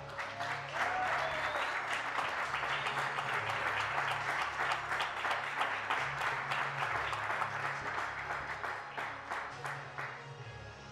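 An audience applauding, which thins out and fades near the end.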